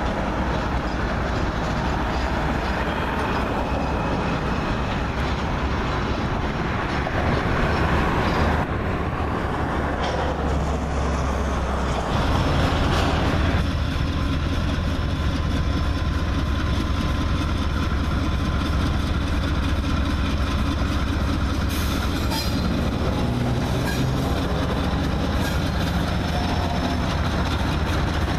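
Diesel freight locomotives rolling past with wheels clattering on the rails. About halfway through, the sound gives way to a steady low diesel engine drone from a CSX-led locomotive consist passing close below.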